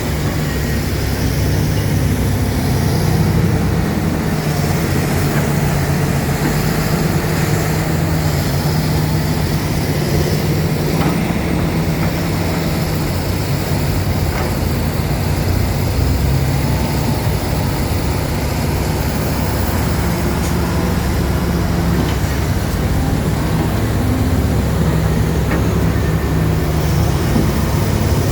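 Heavy diesel engine running steadily under load, a continuous low hum, with a few faint knocks.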